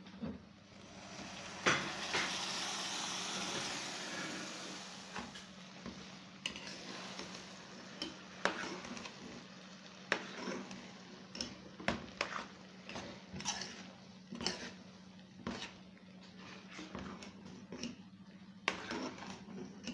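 Hot frying oil sizzles loudly in a pot, starting with a knock about two seconds in and fading over a few seconds, the sound of food going into the hot oil. After that, a metal spoon knocks and scrapes against the pot about once a second as beans are stirred through the oil.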